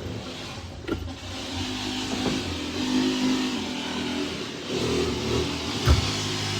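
An engine running with its pitch shifting up and down, with a sharp knock about a second in and another, louder one near the end.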